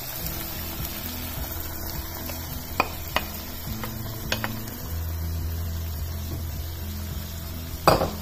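Cooked dal poured from a bowl into a pan of frying radish, onion and tomato, the pan sizzling steadily over a low hum. A few sharp taps of bowl or spoon on the pan come around the middle, and a louder knock near the end.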